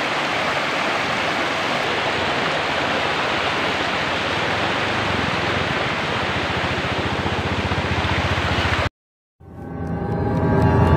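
Shallow stream rushing over rocks, a steady even hiss of water that cuts off abruptly about nine seconds in; music fades up a moment later.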